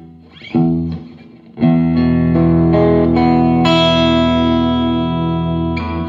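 Electric guitar played through a Vox AC10 C1 valve combo amp: a short chord strummed about half a second in, then another chord struck and left ringing for about four seconds, with some notes shifting within it.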